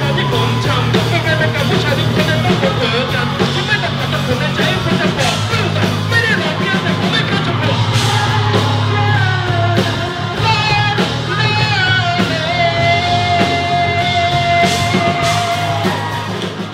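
Live rock band playing loud: electric guitar, drums and a shouted, sung lead vocal, with one long held high note in the last few seconds.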